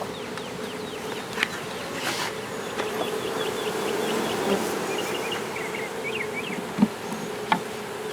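Steady buzzing hum of a swarm of Italian honey bees flying around an open hive box. A few sharp knocks stand out, about a second and a half in and twice near the end.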